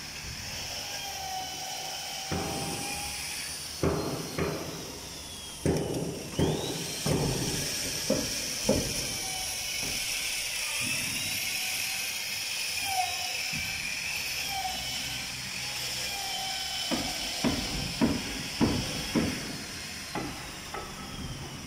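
Hammer blows on the timber of a wooden boat hull under construction, in two runs of several sharp strikes: one from about four to nine seconds in and another near the end, over a steady high hiss.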